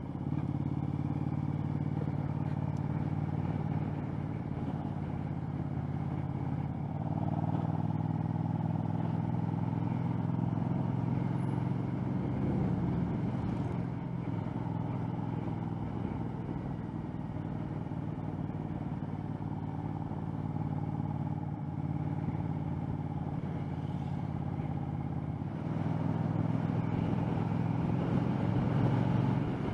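A 2013 Triumph America cruiser's 865cc parallel-twin engine running steadily while riding. The engine note shifts a few times and gets louder about 26 seconds in.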